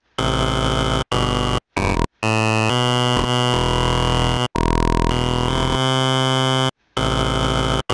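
Image-Line Harmor additive synthesizer playing a string of low, held notes at changing pitches, with sharp stops and short silences between them.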